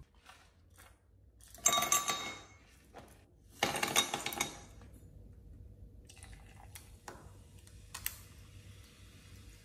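Ice balls tipped from a scoop into a glass tumbler, clattering against the glass and each other in two pours a couple of seconds apart. Later, a faint fizzing hiss as Sprite is poured from a can over the ice.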